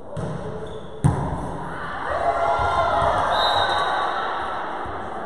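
A volleyball hits with one sharp, loud smack about a second in, echoing around the sports hall. Then players and spectators shout and cheer as the rally ends.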